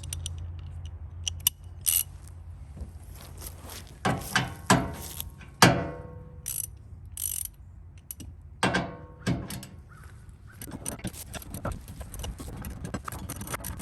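Hand socket ratchet clicking while loosening the 17 mm bolts on a truck's factory tow hook, with separate metallic clinks and knocks of the tools. From about ten seconds in the ratchet clicks come fast and close together.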